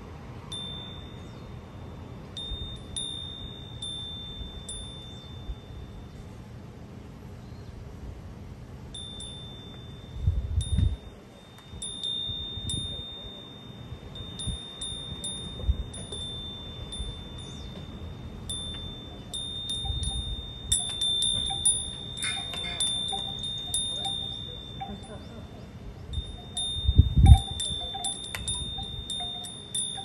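A wind chime ringing in the breeze, struck again and again, with one clear high tone ringing on between strikes and pausing for a few seconds early on. Low rumbles of wind on the microphone come twice, the stronger one near the end.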